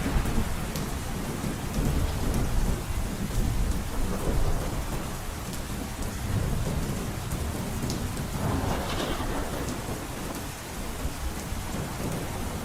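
Heavy rain falling on a roof, a steady dense patter with a deep, continuous rumble underneath and scattered sharp drop ticks; the rain swells briefly about two-thirds of the way through.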